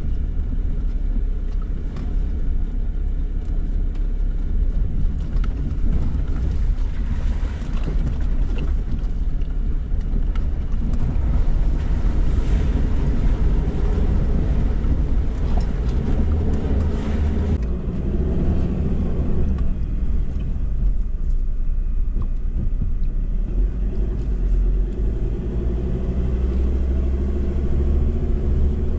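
Ford Ranger ute driving along a dirt bush track, heard from inside the cab. A steady low engine and road rumble runs throughout, with small knocks and rattles from the rough surface.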